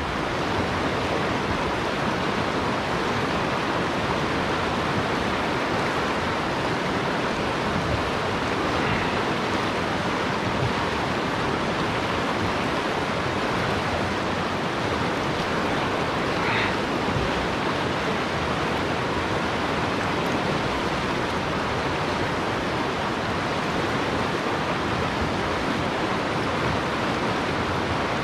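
Shallow river water rushing steadily over a rocky riffle: a constant hiss of moving water.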